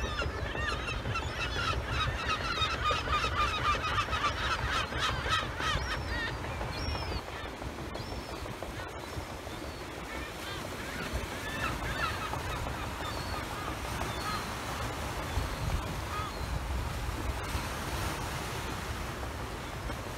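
A flock of birds calling, a thick run of short calls for about the first six seconds, then only scattered calls, over a steady low rumble.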